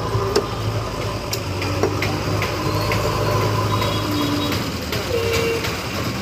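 Steady low hum of a vehicle engine idling in street noise, with a few sharp knocks of a butcher's cleaver chopping chicken on a wooden log block in the first half.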